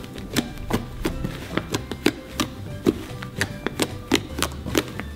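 Fluffy shaving-cream slime being squeezed and kneaded by hand, with short wet clicks and pops at uneven intervals of roughly half a second or less, over background music.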